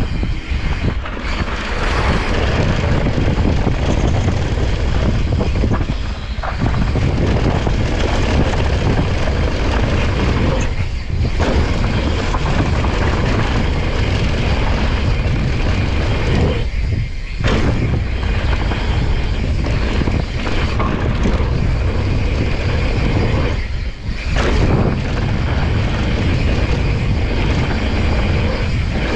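Mountain bike tyres rolling fast over a dirt trail, with heavy wind rumble on a handlebar-mounted action camera's microphone. The noise thins out briefly four times.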